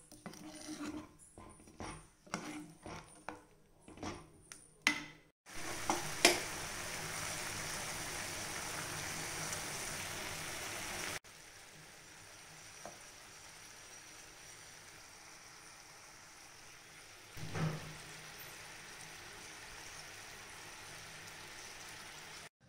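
A spoon clicking and scraping against a nonstick pan of diced raw papaya, then the pan bubbling steadily at the boil. The bubbling drops to a quieter level about eleven seconds in, with one brief knock of the spoon later on.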